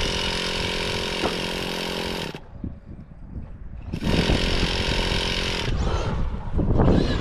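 Small nitro glow engine of an RC car running at high revs in two long bursts: the first cuts off sharply about two and a half seconds in, the second starts about four seconds in, followed by uneven, louder noise near the end.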